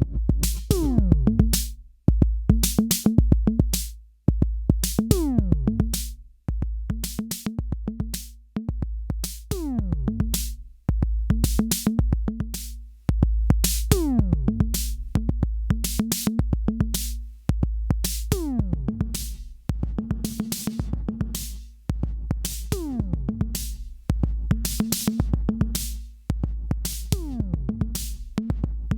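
Electronic drum-machine loop played through an Alesis Nanocompressor set to pump hard. It has a held deep bass, crisp hi-hat-like clicks, and falling-pitch tom or synth sweeps, repeating about every two seconds. The level swells up through each loop and drops off sharply at its end.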